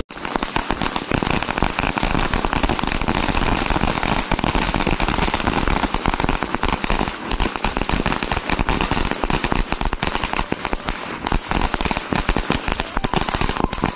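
Firecrackers going off on the ground in a rapid, unbroken run of bangs and crackles.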